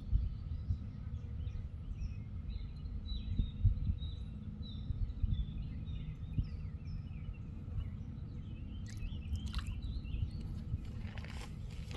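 Small birds chirping repeatedly over a steady low rumble, with a few sharp crackles or rustles near the end.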